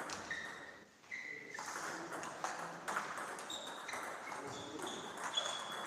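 Table tennis play in a hall: a plastic ball clicking repeatedly off the table and rackets, mixed with several short high-pitched squeaks lasting a fraction of a second each.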